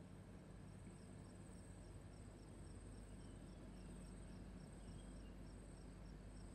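Near silence: faint room hum with a faint, high-pitched chirping in quick, even pulses.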